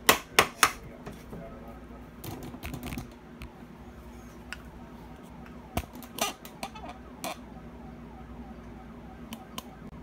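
Steady low hum from an Allied 3/4 hp bench grinder's motor, powered but not starting, typical of a sticking centrifugal start switch. Sharp clicks and knocks break in over it: a quick cluster in the first second, then a few single ones later.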